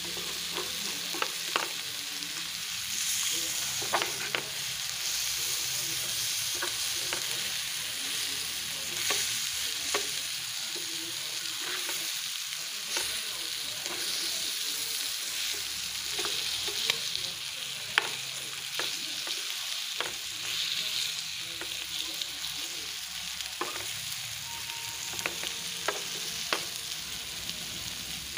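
Masala-coated sardines sizzling steadily in a little oil in a frying pan. A flat spatula now and then scrapes and clicks against the pan as it turns the fish, which are nearly fried through.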